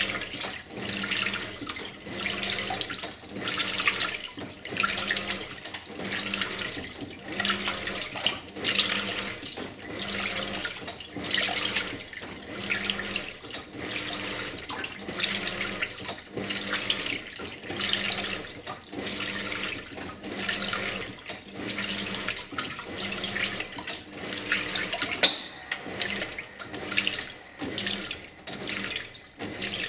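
Simpson Esprit 550 washing machine agitating a load of clothes in water: rhythmic sloshing and splashing about once a second, with the motor's low hum pulsing on each stroke.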